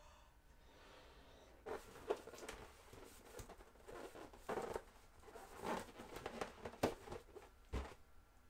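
An inflated latex balloon being knotted and handled by hand: irregular squeaks and rubbing of the stretched rubber, with a few sharp snaps, starting about two seconds in.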